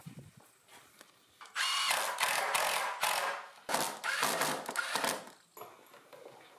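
Handheld power drill driving a fastener into the top of a timber wall stud, in two long runs with a short pause between them, the motor's whine rising as each run starts.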